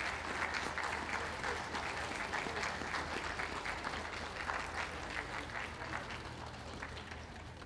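Audience applauding, slowly dying down.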